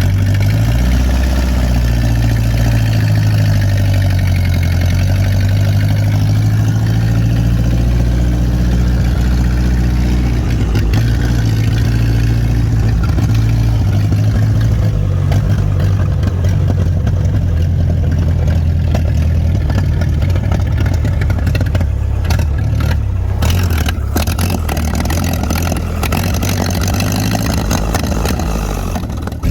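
Early-1930s Plymouth's four-cylinder engine running, its pitch rising and falling a few times.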